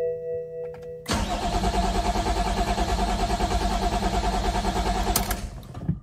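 BMW E60 530d's straight-six diesel turning over on the starter motor for about four seconds, with a fast, even pulsing, then stopping without catching. This is the crank-no-start fault, with the engine computer (DDE) not communicating.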